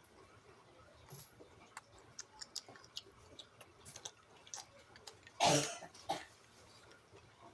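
Eating sounds: scattered small clicks and mouth noises of someone chewing food, with one short, louder burst of noise about five and a half seconds in and a smaller one just after.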